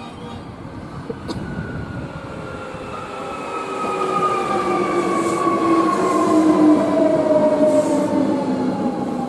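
Hankyu electric train slowing down, its motor whine made of several tones that fall steadily in pitch over several seconds while the running noise grows louder.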